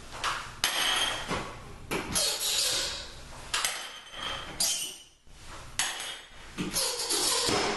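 Sheet-metal cover of a brass-finish vanity light bar knocking and scraping as it is worked loose by hand: a string of sharp clanks about once a second, each followed by a short scraping slide.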